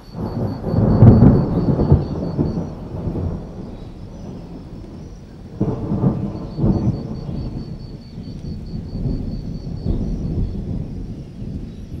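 Rolling thunder: a rumble that swells to its loudest about a second in and slowly fades, then a second crack about six seconds in followed by more rumbling. Crickets chirp steadily behind it in a faint, high, pulsing trill.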